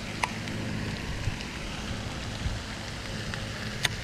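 Steady splashing hiss of a pond fountain's spray, like rain falling on water. Two sharp clicks stand out, one about a quarter second in and one near the end.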